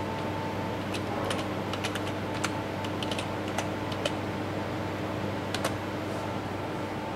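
Computer keyboard typing: a quick run of keystrokes over about three seconds, then two more close together about five and a half seconds in.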